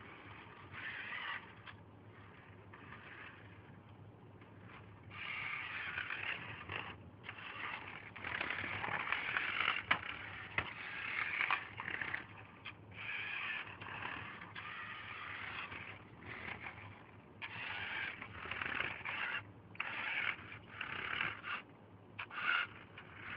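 Battery-powered Radio Shack RC Lamborghini Countach's small electric motor and gearbox running in short bursts, starting and stopping over and over as the throttle is worked on and off.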